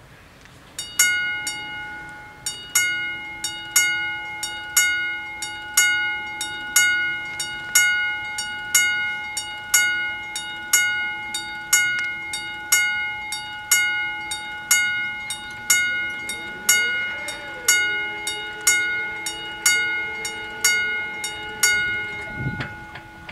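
Level-crossing warning bells ringing, one clanging stroke about once a second, as the crossing closes. Over the last few seconds a steady motor hum joins in as the barrier booms lower, and the ringing stops with a low thud as they come down.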